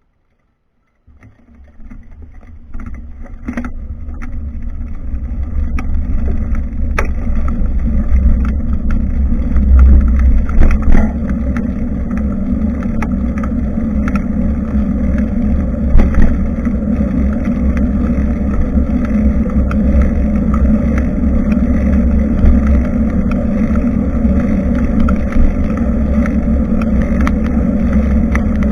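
Wind and road rumble picked up by a bicycle-mounted action camera's microphone while riding. The rumble starts abruptly about a second in and grows louder over the next several seconds, with occasional short knocks.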